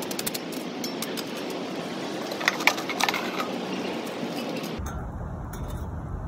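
Hot coals clinking and scraping as they are shovelled with a metal shovel onto the lid of a cast-iron Dutch oven, with a sharp cluster of clinks about two and a half seconds in. A low rumble sets in near the end.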